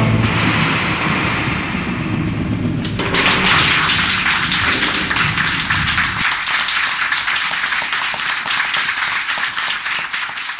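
Theatre audience applause, a dense crackle of many hands clapping that swells in about three seconds in, once the song has ended, and carries on steadily.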